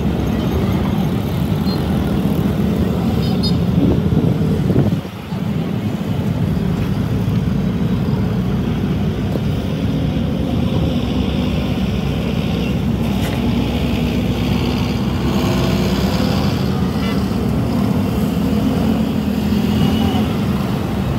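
Steady low rumbling background noise, like road traffic or an engine running, with a brief drop about five seconds in.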